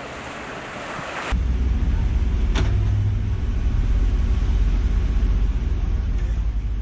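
Surf and wind hiss that cuts off abruptly about a second in, replaced by the steady low rumble of a large vehicle engine running, with one sharp click partway through.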